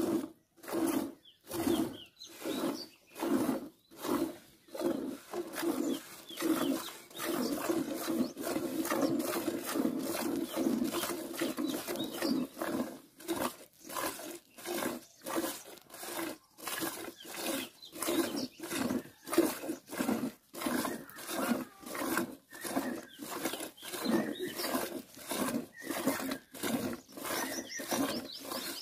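Cow being hand-milked into a steel pail: regular squirts of milk hitting the pail, about two a second.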